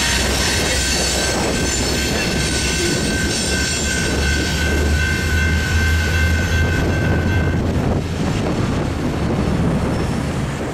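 Railroad crossing signal bell ringing steadily, then stopping about three quarters of the way through as the signals shut off. A heavy low rumble from the departing freight train runs underneath, and road traffic starts to pass once the crossing clears.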